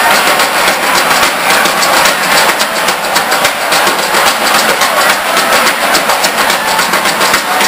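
Live blues-rock band playing loud, overloading the camera's microphone into a dense, distorted wash of sound with drum hits showing through.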